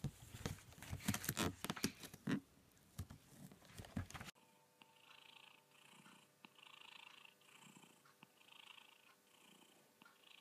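A white Persian cat purring softly, the purr rising and falling with its breaths about once a second. Before that, for the first few seconds, there are some louder knocks and rustles.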